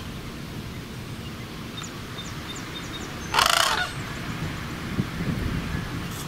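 Sandhill crane giving one loud call about three seconds in, lasting about half a second.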